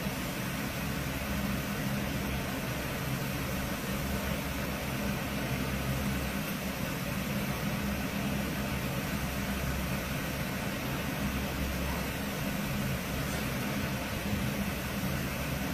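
Cat purring close to the microphone: a continuous low rumble that swells and eases every couple of seconds with its breathing, over a steady hiss.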